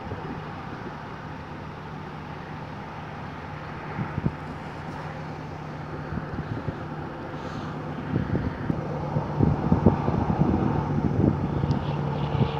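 Steady road noise of a moving car with a low engine hum. From about eight seconds in it grows louder, with wind gusts buffeting the microphone.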